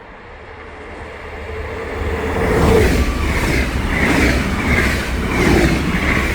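Train approaching and passing close by: the noise builds over the first couple of seconds, then the wheels clatter in a regular rhythm, roughly every 0.7 seconds, as the carriages go by.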